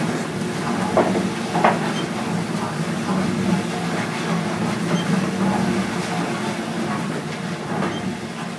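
Auger boring machine's 762 mm cutter head and auger turning as it breaks through into the reception pit: a steady mechanical rumble with scattered sharp knocks, two of them close together about a second in, easing off slightly near the end.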